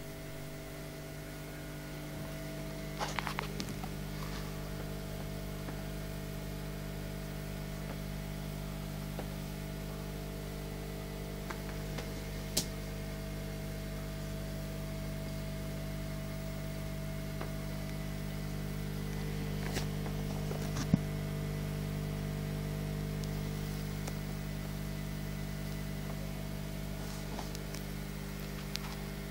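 Steady electrical hum of aquarium equipment, an air or filter pump running, with a few short sharp clicks along the way.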